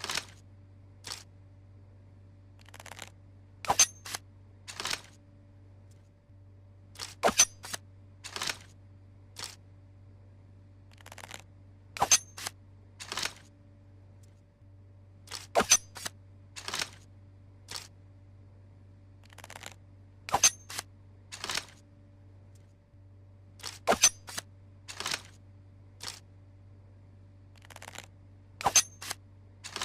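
Tanto dagger being handled repeatedly, most likely drawn from and returned to its scabbard: clusters of sharp metallic clicks, the loudest with a brief high ring, repeating about every four seconds. A steady low hum runs underneath.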